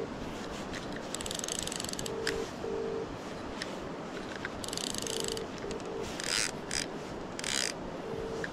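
A fly reel's click-and-pawl check ratchets in short bursts, about a second each, as line is worked against a hooked salmon. Over a steady rush of river water, a phone's British double ringing tone repeats faintly: a call still waiting to be answered.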